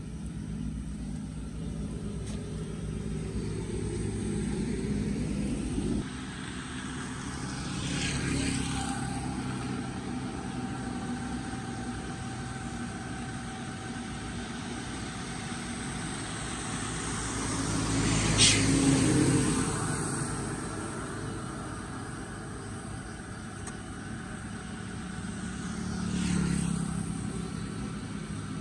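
Traffic passing on a rain-wet road: a steady low rumble, with three vehicles swelling past, the loudest about two-thirds of the way through, their tyres hissing on the wet asphalt.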